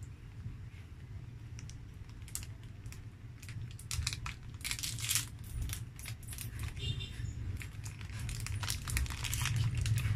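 Plastic snack-cake wrapper crinkling and crackling as it is handled and torn open. The crackles come thicker from about four seconds in.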